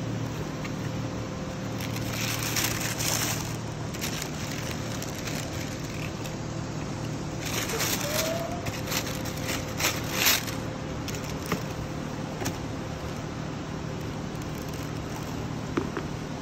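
Tissue paper rustling and crinkling in several short bursts as a pair of shoes is unwrapped and lifted out of a cardboard shoebox, with a few light knocks of the shoes and box, over a steady background hum.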